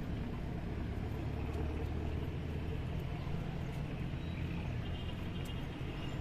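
Low steady hum of a motor vehicle's engine, slowly fading, over faint street ambience.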